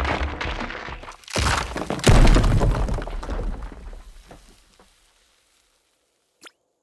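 Cartoon sound effects of something breaking: a loud crash about a second in and a louder one a second later, each fading out over a few seconds, then a single faint click near the end.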